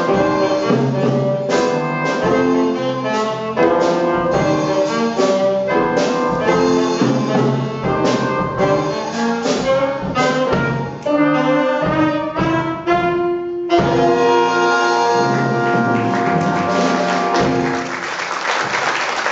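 Student band of drum kit, electric bass, keyboard and horns playing a jazzy tune, ending on a long held final chord. Audience applause starts just before the end.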